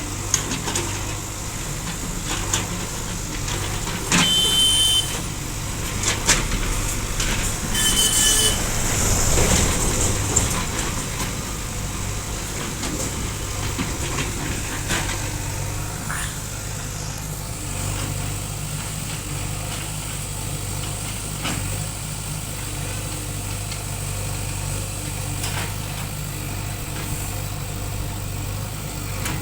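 JCB 3DX backhoe loader's diesel engine running steadily while working. Two brief high-pitched sounds come through about four and eight seconds in.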